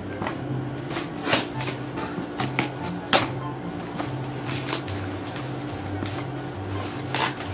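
A plastic courier pouch being handled, with a few sharp crinkles about a second in, around three seconds in and near the end. Under it runs quiet background music with a simple low melody.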